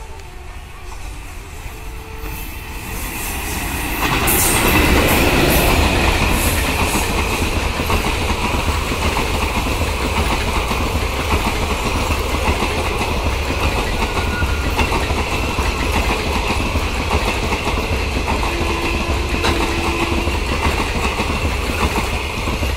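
Electric-hauled Indian passenger express train approaching and running through a station at speed. A rumble builds over the first four seconds, then the coaches rush past with wheels clattering over the rails.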